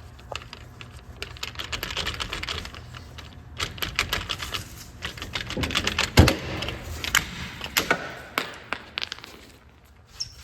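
Irregular metallic clicks and clatter of tools and parts being worked at rusty strut-to-knuckle bolts, with one heavy knock about six seconds in, over a low steady hum.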